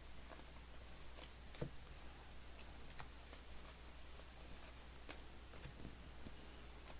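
Faint clicks and light rustles of trading cards being handled and flipped through one by one, a few sharp ticks scattered about a second apart, over a low steady hum.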